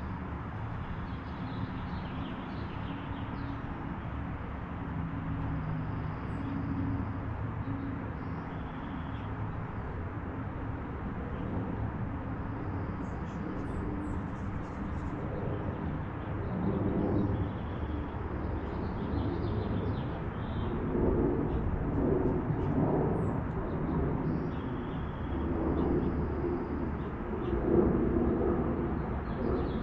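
Outdoor backyard ambience with a steady low rumble. From about halfway through, a dove coos repeatedly in short low phrases, and faint high bird chirps come now and then.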